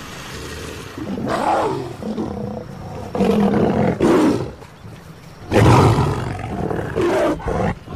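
Lionesses snarling and roaring in three loud bursts, warning off crocodiles approaching their kill.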